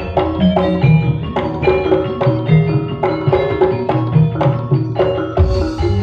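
Jaranan accompaniment played on Javanese gamelan: struck bronze pot-gongs and metallophones ringing out a fast, steady rhythm over hand-drum strokes. A heavy low stroke lands about five and a half seconds in.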